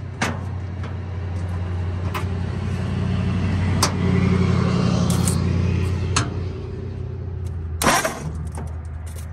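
The starter cranks the freed-up 1939 Ford flathead V8, which has its cylinder heads off, in a steady whirring drone that swells louder in the middle. A few sharp clicks cut through it, the loudest near the end.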